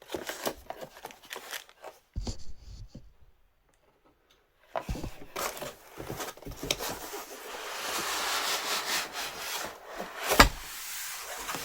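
A cardboard package and its packing being handled and opened: scattered knocks and scrapes, then several seconds of steady rubbing and rustling, with one sharp knock near the end.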